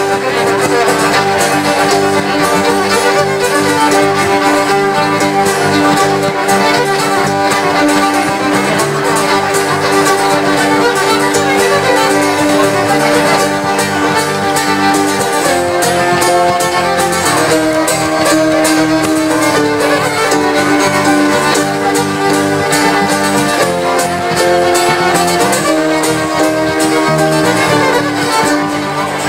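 Instrumental music: a melody of held notes that changes pitch in steps, played steadily.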